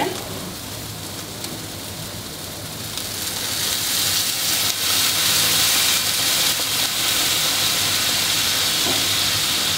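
Red wine poured into a hot frying pan of browned beef and wilted vegetables, hissing and sizzling as the pan is deglazed for a sauce. The sizzle swells about three seconds in as the wine hits the pan, then holds steady.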